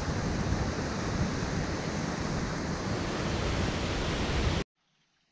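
Mountain stream rushing over small cascades between rocks: a steady rush of water that cuts off abruptly about four and a half seconds in.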